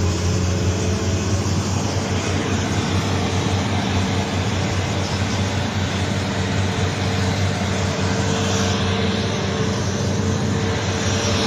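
Excavator's heavy diesel engine running steadily, a constant low drone with no change in pitch.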